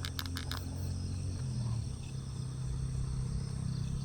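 An old motorcycle engine idling with a steady low hum, while crickets chirp steadily in the background. A few light clicks come right at the start.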